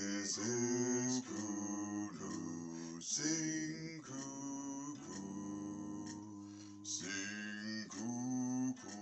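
Two male voices singing a round, holding long notes, with a plucked string instrument accompanying them.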